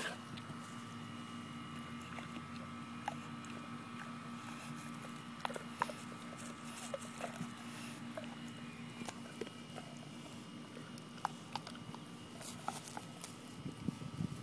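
Brindle pit bull gnawing and chewing on an object in its mouth: scattered small clicks and crunches over a steady low hum.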